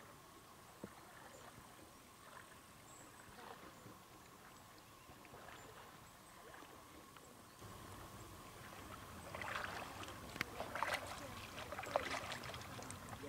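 Kayak paddle strokes: a double-bladed paddle dipping and splashing in calm water in a run of irregular splashes with sharp drips and clicks, starting about two-thirds of the way in. Before that there is only a faint steady hiss.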